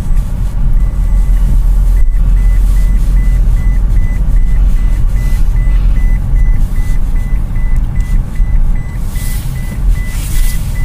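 Toyota Prius in-cabin warning chime beeping rapidly, about three times a second, most likely the unfastened-seatbelt reminder, over a heavy low rumble inside the car. Rustling comes in near the end.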